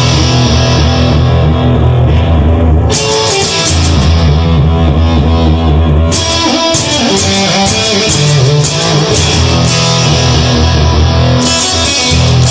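Instrumental rock music: guitar riffing over bass and a drum kit, with no singing.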